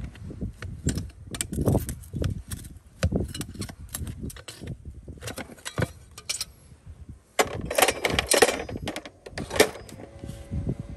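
A steel horseshoe being pulled off a horse's hoof with farrier's shoe pullers: irregular metal clicks, clinks and knocks of the pullers working the shoe and nails loose. Near the end there is a denser, louder clatter of about a second.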